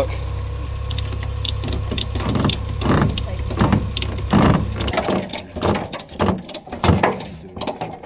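Ratchet tie-down strap being cranked tight to secure a motorcycle in a truck bed: a run of sharp clicks and heavier clacks, over a steady low hum that stops about five seconds in.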